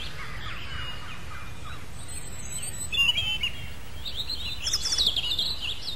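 Several birds singing and chirping over a steady low background noise, with a louder run of quick high chirps toward the end.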